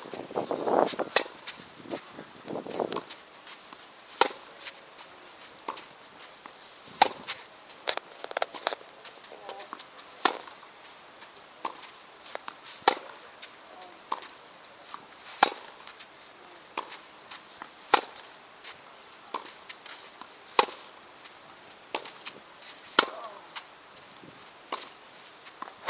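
Tennis balls struck back and forth in a practice rally: a sharp racket hit about every two and a half seconds, with quieter bounces of the ball in between.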